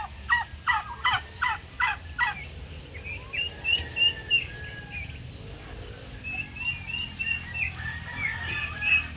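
Domestic turkeys calling: a run of about six quick downward-sliding calls in the first two seconds, then strings of high chirping notes.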